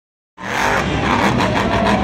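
Monster truck's supercharged V8 engine revving hard as the truck drives at and launches off a dirt jump, mixed with music from the arena speakers. The sound cuts in abruptly about a third of a second in.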